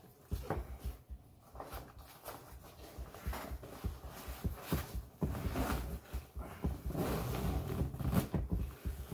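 Handling noise from a large 5.11 Rush100 fabric backpack: webbing straps pulled through their retention buckles, fabric rustling and knocking, and the main compartment zipper being opened, with the busiest rustling in the second half.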